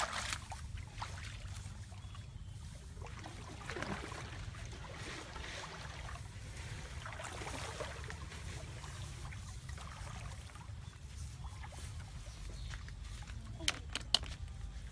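Rustling and light splashing of grass, rice plants and shallow water being handled at a paddy ditch's edge, over a steady low rumble. Two sharp clicks come near the end.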